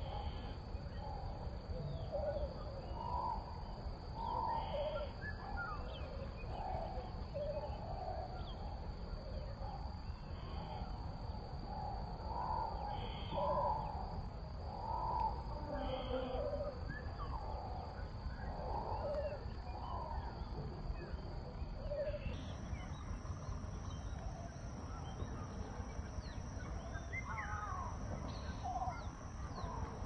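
Outdoor wetland ambience: a steady high insect drone, which steps up in pitch about two-thirds of the way through, under many short scattered animal calls, with a low rumble beneath.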